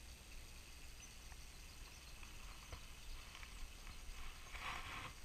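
Quiet forest ambience with scattered faint knocks of footsteps on a wooden boardwalk, and a short rustling noise near the end.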